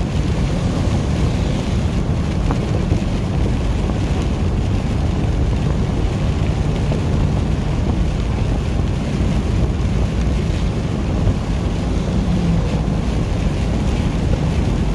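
Steady low drone inside a truck cab at highway speed in heavy rain, with tyres hissing on the wet road.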